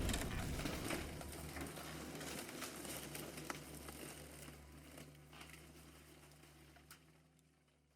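The tail of an explosion sound effect: a low rumble fading away with scattered crackles and ticks, dying out about five seconds in, followed by dead silence.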